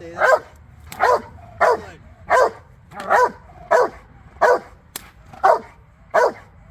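Rottweiler barking in a steady rhythm, about one bark every 0.7 seconds, held back on a harness and line as it barks at a decoy in protection bite work.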